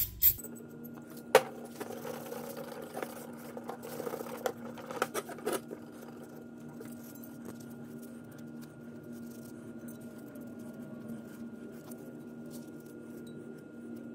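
Outboard recoil-starter pulley being wiped with a rag and handled on a workbench: rubbing with a few sharp knocks of metal in the first six seconds, then only a steady hum.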